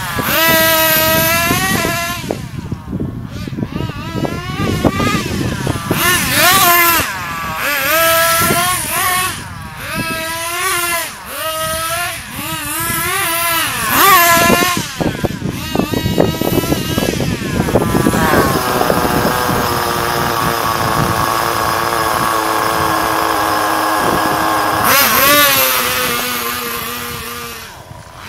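Engine of a 1/10-scale HPI radio-controlled car, revving up and down in quick bursts about once a second as the car is driven at full throttle. About two-thirds of the way in it holds a steady high pitch for several seconds, which sags slightly and then falls away near the end.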